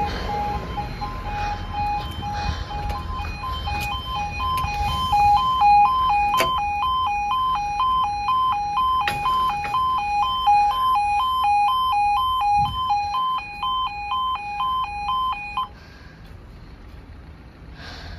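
Level crossing's electronic two-tone yodel alarm, warning road users that a train is coming and the barriers are lowering. It alternates rapidly between two pitches and cuts off suddenly about three-quarters of the way through. Road traffic rumbles underneath in the first half.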